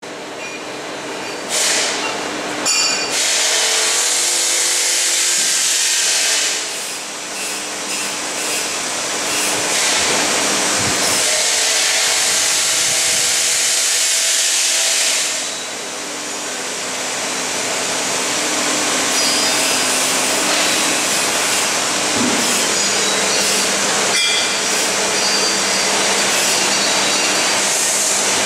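Rotary sublimation heat press running in a workshop: a steady mechanical hiss over a low hum, easing off for a second or two twice, with a few sharp clicks.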